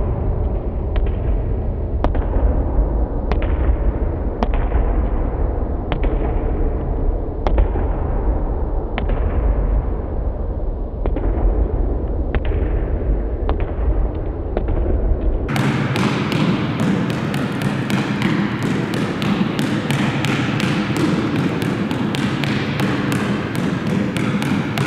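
Basketball bouncing on a gym floor in a dribbling drill, each bounce echoing in the hall, over a steady low rumble. About one bounce a second at first, then from about two-thirds of the way through, quicker dribbling at roughly three bounces a second.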